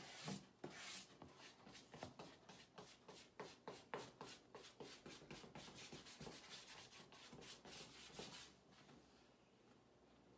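Paintbrush bristles scrubbing paint onto stretched canvas in quick, faint strokes, several a second, which stop about eight and a half seconds in.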